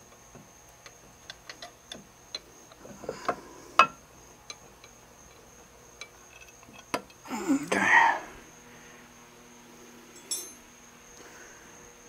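Hand tools working bolts under a cast-iron lathe saddle: scattered small metallic clicks and taps, with a louder knock about four seconds in and a short rapid ratcheting patter near the end. A brief louder rustle-like sound comes about eight seconds in.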